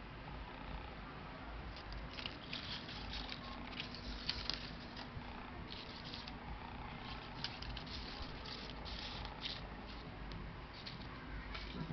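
Folded paper flowers being handled and slid together on a tabletop: irregular, light rustling and crackling of paper.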